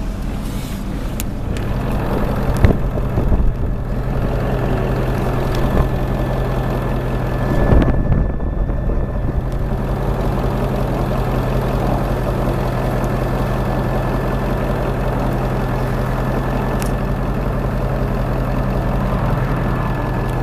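Ford F-350 pickup engine running steadily, with a few short knocks and rattles, the loudest about eight seconds in.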